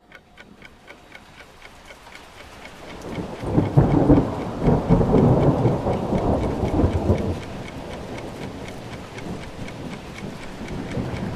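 Rain falling, with a faint regular ticking of about four or five ticks a second. About three seconds in, a long roll of thunder swells, stays loud for a few seconds, then dies down to a low rumble under the rain.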